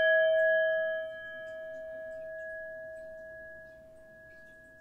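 Metal singing bowl ringing after being struck with a wooden striker: one clear steady tone with a few higher overtones, slowly fading away, the higher overtones dying out first.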